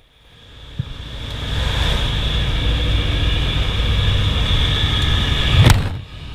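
Airplane engine and rushing air at the open door of a skydiving jump plane, fading in over about a second and a half and then running steadily. A short knock near the end, then the sound drops out briefly.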